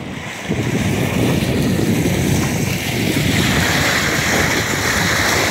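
Strong wind buffeting the microphone while wind-driven waves splash and break against the rocky reservoir shore. The wash of surf grows louder from about three seconds in.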